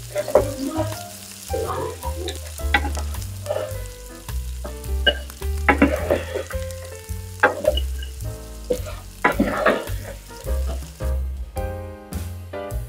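Diced potatoes sizzling in hot oil in a frying pan, stirred and scraped with a wooden spatula in repeated strokes. The sizzle thins out near the end.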